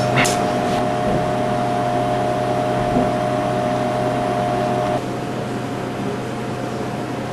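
Laboratory oven running with a steady fan-and-motor hum and a high whine. The whine cuts off about five seconds in and the hum gets slightly quieter.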